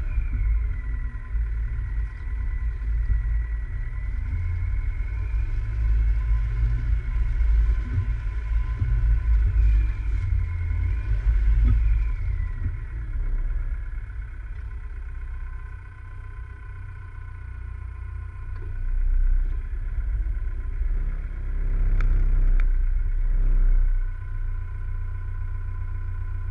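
An off-road vehicle's engine running as it drives slowly over a rough sandy track, with a deep, steady rumble and a high whine that dips in pitch twice. The sound swells a couple of times later on, with two sharp knocks from the bumpy ground about two-thirds of the way through.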